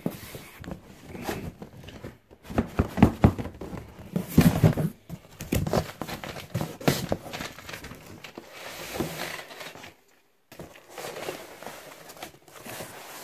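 Cardboard shipping box being handled and turned over: irregular scraping, rustling and knocks of cardboard, loudest about three and four and a half seconds in. The sound cuts out briefly about ten seconds in.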